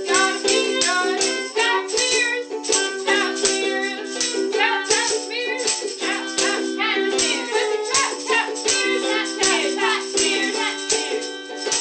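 A band playing a song: a shaker rattles on a steady beat over held chords, with a voice singing a wavering melody.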